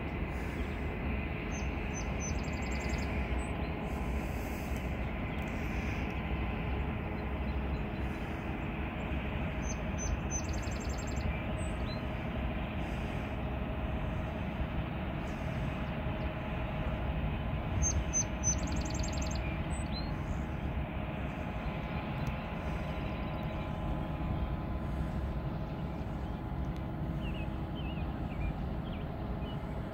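Diesel engines of a river towboat pushing barges, a steady low drone with a constant engine tone throughout.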